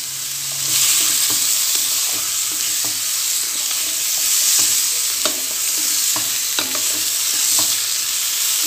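Cubed ash gourd sizzling in hot oil in a metal pot while a wooden spatula stirs it, with short scrapes and taps of the spatula against the pot now and then. The sizzle gets louder about a second in.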